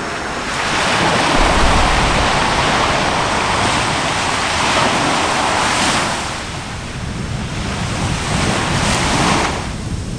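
Continuous rushing noise of an erupting volcano's lava vent, mixed with wind on the microphone. It swells in one long surge and then a shorter one near the end.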